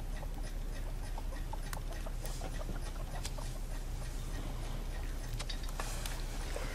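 Farmyard fowl clucking in short, scattered calls over a low steady hum, with a few light clicks.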